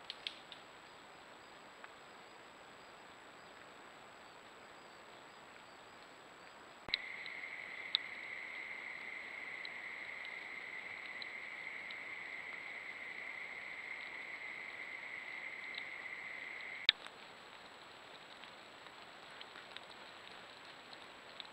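Trail camera clips' own recorded audio: a faint steady hiss with a constant thin high tone, broken by a click at each cut between clips. In the middle clip, about seven seconds in, a steady buzzing tone joins the hiss, holds for about ten seconds, and stops abruptly with a sharp click.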